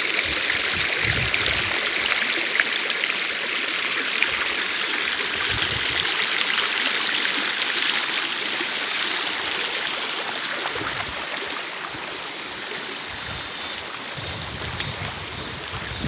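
Clear, shallow rocky stream rippling and splashing over stones, a steady rush of running water that eases a little past the halfway point.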